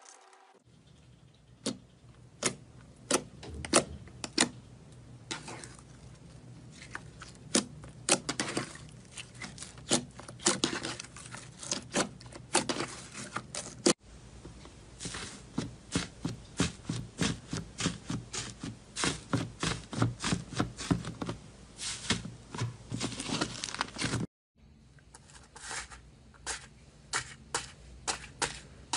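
Hands pressing and poking slime, making a dense run of sharp sticky clicks and small pops. After a brief break about 24 seconds in, crunchy slime in a steel bowl crackles under the fingers.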